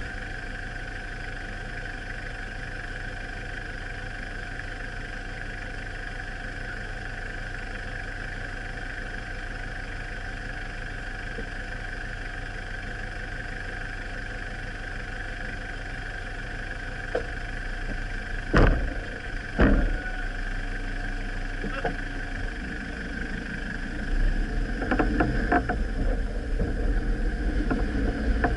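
Vehicle engine idling steadily. Two car-door slams follow about a second apart, and then the vehicle moves off along a rutted dirt track, its running louder and broken by bumps and rattles.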